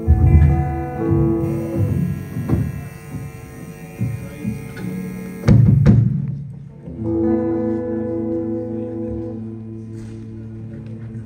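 Soft instrumental music: held chords that sustain for several seconds, changing to a new chord about six seconds in. Low thumps come in the first second and again just before the chord change.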